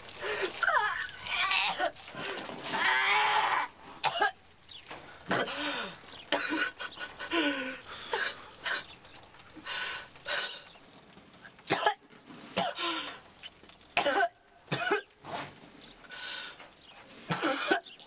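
A boy crying: wavering wails over the first few seconds, then broken sobs, sniffs and coughs.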